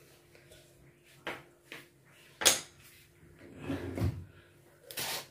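A few scattered clicks and knocks of a steel mixer-grinder jar and kitchen utensils being handled on a stone counter, the loudest a sharp knock about halfway through, with a duller scrape a little later.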